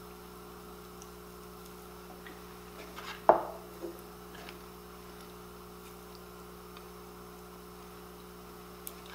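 A steady low electrical hum, with one sharp knock about three seconds in and a softer one just after, as seared round steak slices are pushed by hand into glass mason jars.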